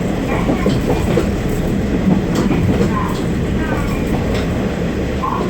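KiHa 40 diesel railcar running along the line: a steady drone of the diesel engine and wheels on track, with sharp clicks as the wheels cross rail joints.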